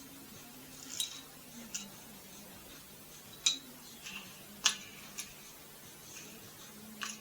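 Small metal parts and hand tools clinking and tapping: about six short, sharp clicks, the loudest about four and a half seconds in, as a band saw is being put back together.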